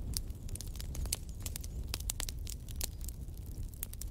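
Burning wood logs crackling in a fireplace: irregular sharp pops and snaps, several a second, over a steady low rumble of the flames.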